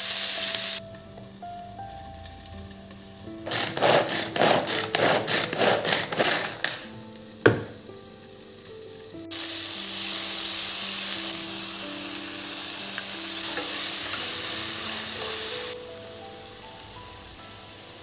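Aubergine pieces sizzling in hot oil in a kadai. In the middle a spatula stirs them with a quick run of scraping strokes, ending in one sharp knock against the pan. The sizzling then comes back strongly for several seconds.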